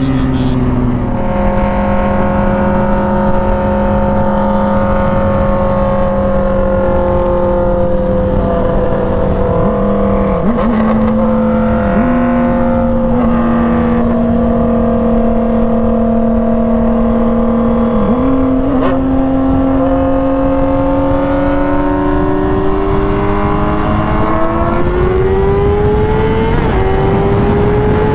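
Sport motorcycle engine under way with wind rushing past. It holds steady cruising revs, with a few brief blips of throttle, then its pitch climbs steadily through the last third as the bike accelerates.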